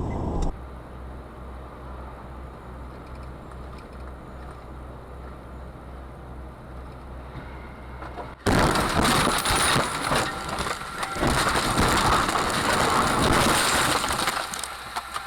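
Vehicle cab audio from a dashcam: a low, steady engine hum. About eight seconds in it cuts abruptly to much louder rough noise thick with knocks and rattles, which is the loudest part.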